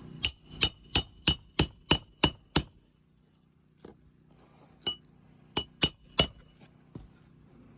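Hammer driving a nail down into a roof shingle: a quick run of about eight ringing metallic strikes, roughly three a second, then after a pause four more.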